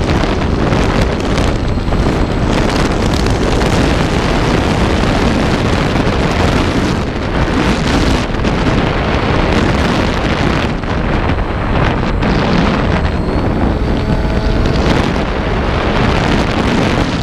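Airflow rushing over the microphone of a GoPro camera riding on a flying FX-79 Buffalo flying-wing model plane: loud, steady wind noise that gusts and flutters. A faint, thin whine from the plane's motor sits underneath.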